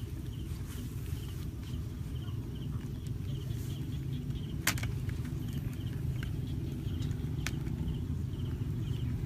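Insects chirping in short, evenly spaced pulses, a few a second, over a steady low rumble, with two sharp clicks, one about halfway through and one near the end.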